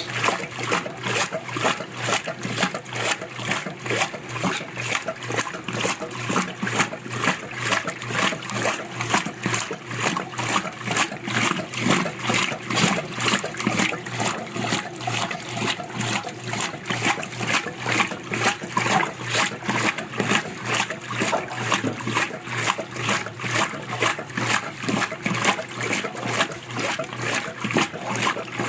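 Acros washing machine agitating: wash water sloshing back and forth in a steady rhythmic 'chaca-chaca', about two strokes a second.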